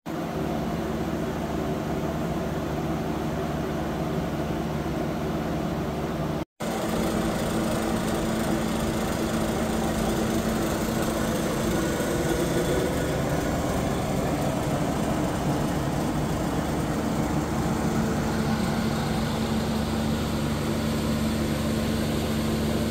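Electric forge blower running steadily, driving air up through a burning coal fire as a continuous hum with a rushing of air. The sound cuts out for an instant about six and a half seconds in.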